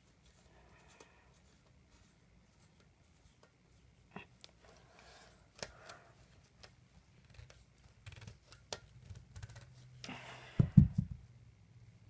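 Screwdriver turning a wire terminal screw on a fire alarm pull station: faint scraping and scattered small clicks, with a louder thump from handling the unit near the end.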